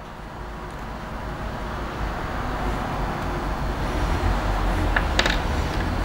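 Vehicle noise growing steadily louder, with a few light clicks about five seconds in.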